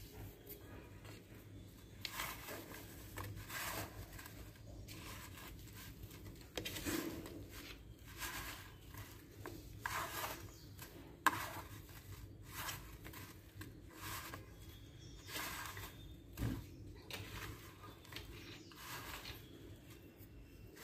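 Hands pressing and turning brinjal slices in a dry semolina-and-spice coating on a plate: soft, irregular gritty rustling and rubbing, with one sharper click about halfway through.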